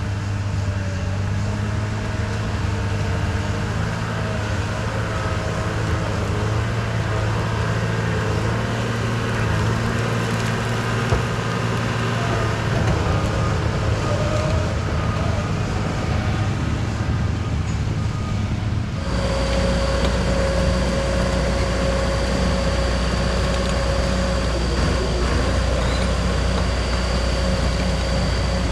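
Bulldozer diesel engine running steadily under work, its pitch shifting a little. About two-thirds of the way through the sound changes abruptly to a deeper, steadier drone with a thin high whine above it.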